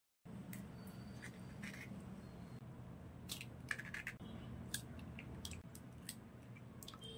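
Eggs being cracked by hand into a glass bowl: a string of short shell cracks and clicks, irregularly spaced, the sharpest about midway, over a steady low hum.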